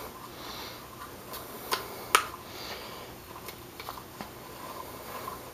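A plastic stirrer clicking and scraping against the side of a plastic cup while stirring resin glue mixed with water into a paste. There are a few sharp, irregular clicks, the loudest two close together about two seconds in.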